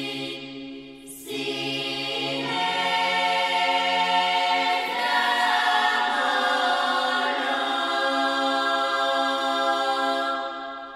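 Choral music: a choir singing long held chords, with a brief drop in the sound about a second in.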